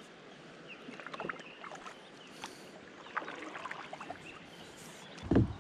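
Kayak paddling: a double-bladed paddle dipping into the river, with water splashing and dripping off the blades and small scattered clicks. A single low thump about five seconds in.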